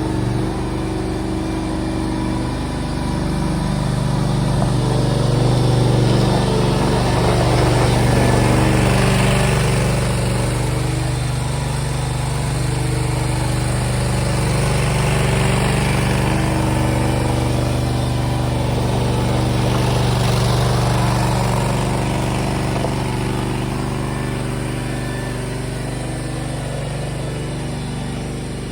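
Briggs & Stratton Vanguard engine of a mini skid steer running steadily, getting a little louder a few seconds in and easing off slightly near the end.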